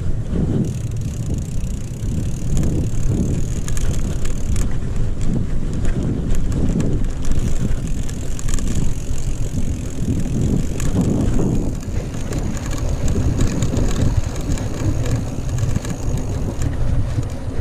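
Commencal Meta mountain bike riding fast over a rough dirt and sand trail, heard close on the bike: a steady rumble of tyres and wind on the microphone, with the bike rattling over bumps throughout.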